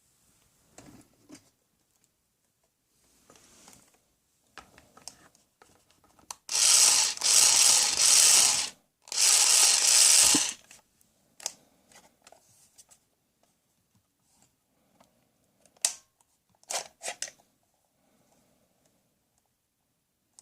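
Battery-operated toy power tool running with a rattling, ratchet-like whir, in two bursts of about two seconds and just over a second. It is followed later by a few short plastic clicks.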